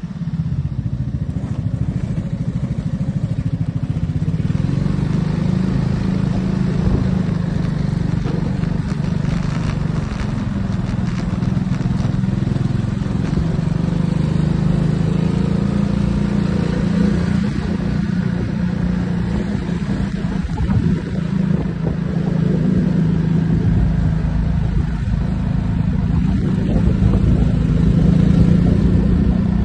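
Piaggio MP3 three-wheeled scooter's single-cylinder engine running steadily under way, its pitch shifting only slightly as the ride goes on.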